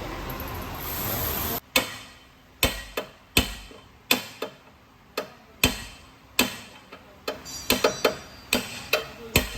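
A steady hiss that cuts off abruptly about a second and a half in, then a series of sharp knocks, about a dozen at uneven intervals, from tools striking metal parts during work on a shock absorber's top mount.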